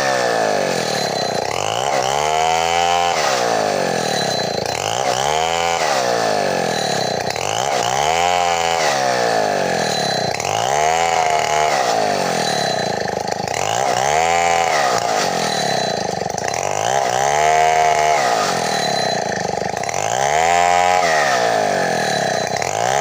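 Two-stroke chainsaw on a chainsaw mill ripping a bayur log lengthwise into boards. The engine runs under load with its pitch rising and falling in regular surges about every three seconds.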